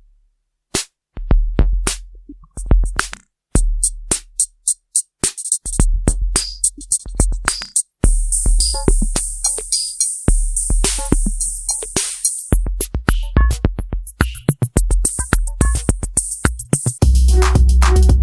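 Roland TR-8S drum machine playing a factory preset rhythm pattern: a sparse beat of low bass-drum hits and clicks that fills out about halfway through, when a steady high hiss joins in. Near the end it switches to a denser, fuller pattern.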